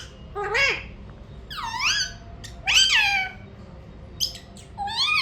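Alexandrine parakeet calling: about four loud, high calls that rise and fall in pitch, separated by short pauses, with two short chirps about four seconds in.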